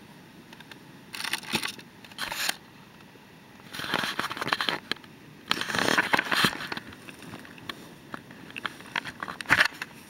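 Crinkling and rustling of handled material, like nylon fabric or plastic being moved and crumpled, in several irregular bursts with a sharp crackle near the end.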